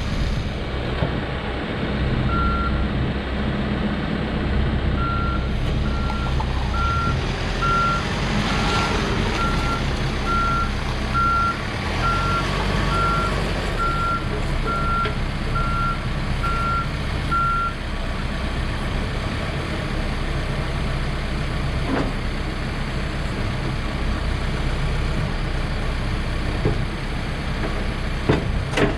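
2013 Case 590 Super N loader backhoe's diesel engine running steadily. Its reverse alarm gives one beep a couple of seconds in, then a regular run of beeps, a little over one a second, for about thirteen seconds as the machine backs up. A few sharp knocks come near the end.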